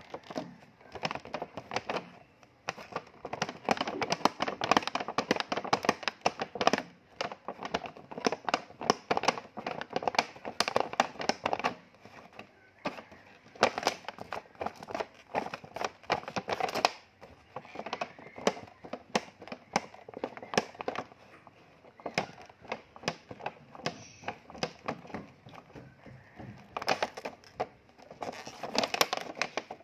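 Stiff clear plastic blister packaging crackling and crinkling as it is handled, in dense runs of sharp crackles that thin out about twelve seconds in and pick up again near the end.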